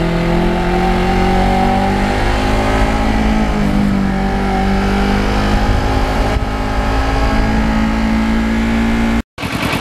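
Kawasaki Ninja 650R's parallel-twin engine running under way at a steady cruise, mixed with wind and road noise. Its pitch dips a little about three to four seconds in, then picks up again. The sound cuts off abruptly near the end.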